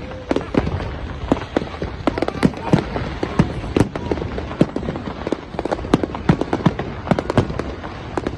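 New Year's Eve fireworks and firecrackers going off: a dense, irregular crackle of sharp bangs, several a second, over a steady din of crowd and city noise.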